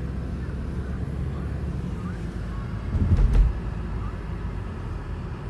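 Steady low rumble of a car's engine and tyres heard inside the cabin while driving, with a louder low thump a little after three seconds in.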